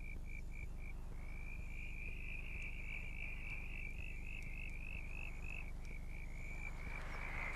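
Night chorus of frogs: a steady high-pitched trilling in short pulses, a few a second, with a brief break about a second in.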